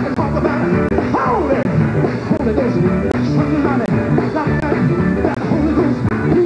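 Live gospel music from a vocal group backed by an electric guitar, with singing.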